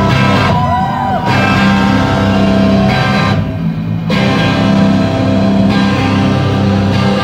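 Live rock band playing loudly: distorted electric guitar over bass and drums, breaking off for a moment about three and a half seconds in before crashing back in. Heard from within the crowd.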